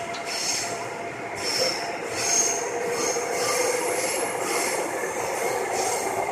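Seoul Subway Line 9 train running, heard from inside the car: a steady rumble of wheels on the rails, with high-pitched wheel squeal coming and going.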